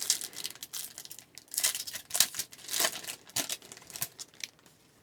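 Plastic-foil hockey card pack wrapper being torn open and crinkled: a run of irregular crackles that stops about four and a half seconds in.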